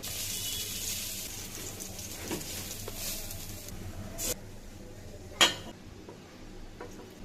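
Food sizzling in a hot pan for the first few seconds, then stopping, followed by a few sharp knocks of a utensil against the pot, the loudest about five seconds in.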